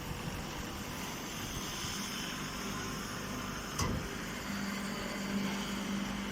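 A machine running steadily, with a low hum that sets in about halfway through and a single knock just before it.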